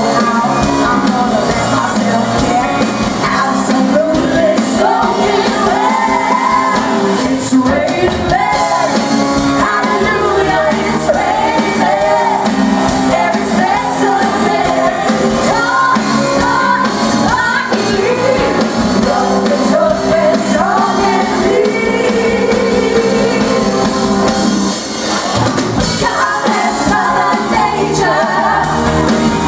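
Live band playing an upbeat pop-rock song with lead singing and occasional shouts.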